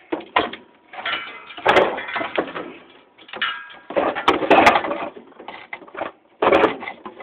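A ceiling fan's metal motor housing and blades being shifted and turned over on a concrete floor, clattering and scraping in irregular bursts, with a few sharp clicks.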